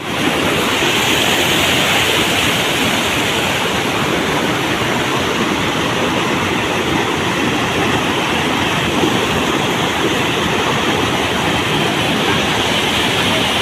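Floodwater rushing in a strong, steady current through a breach in a washed-out road.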